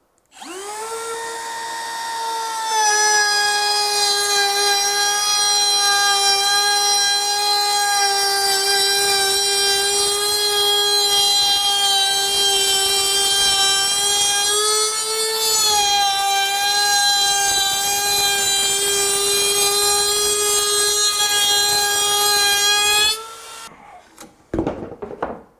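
Milwaukee M18 FUEL cordless compact router starting up and running with a steady high whine, its roundover bit cutting a quarter-round along the edge of a board. It gets louder about three seconds in, dips in pitch briefly around the middle, then is switched off near the end and spins down, followed by a few short knocks.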